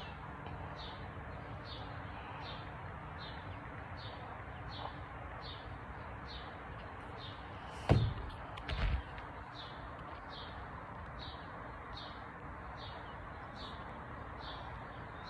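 A bird repeating a short high chirp about twice a second over steady background noise, with two thumps about eight seconds in.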